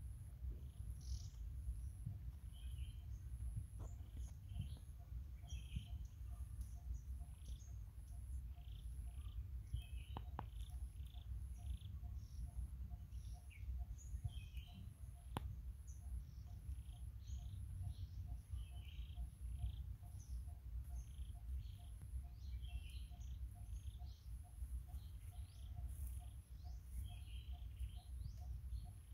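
Outdoor ambience of wild birds chirping at intervals, with a high evenly pulsing call and a faint repeated low note running steadily under a low rumble. Two sharp clicks stand out, one about ten seconds in and one about fifteen.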